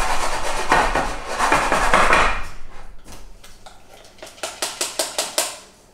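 A dark metal cake tin of batter being shaken and knocked on a wooden chopping board to settle and level the batter: a dense rattle of knocks for the first couple of seconds, then a run of lighter, separate taps that fade away.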